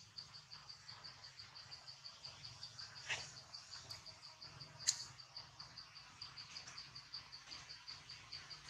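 Insect chirping in a steady, high-pitched pulse, about five chirps a second, with two short sharp clicks about three and five seconds in.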